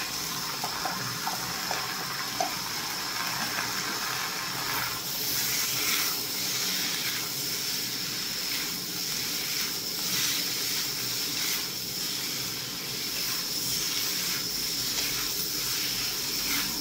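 Shrimp and broccoli sizzling in hot oil in a pan as they are stir-fried: a steady frying hiss that swells in pulses, about once a second, as the food is stirred.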